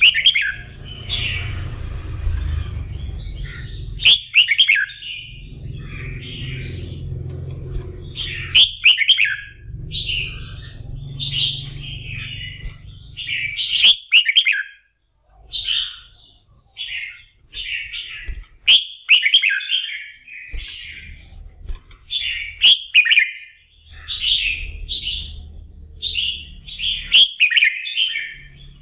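Red-whiskered bulbul singing, a loud full song of the kind played to fire up competition bulbuls: short, chirpy warbled phrases every second or two. A few sharp clicks stand out above the song, and a low rumble sits underneath at times.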